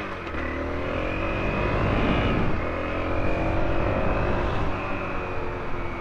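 Honda CRF250L's single-cylinder four-stroke engine, fitted with a PowerBox header, accelerating away from a stop. The revs climb, dip briefly about two and a half seconds in, then climb again before settling.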